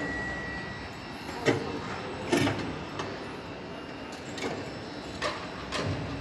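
Several scattered knocks and clunks over steady background noise, the loudest about a second and a half and two and a half seconds in.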